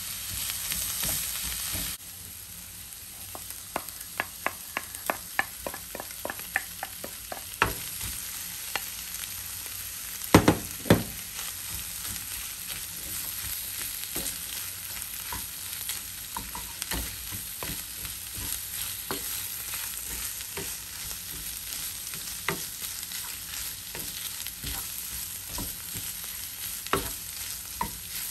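Bamboo shoots and scrambled egg sizzling in a nonstick frying pan while a wooden spatula stirs and scrapes them. A few seconds in, the sizzle is joined by a run of about a dozen quick, regular clicks, about three a second. Then come two loud knocks, the loudest sounds, before the steady sizzling and stirring carry on.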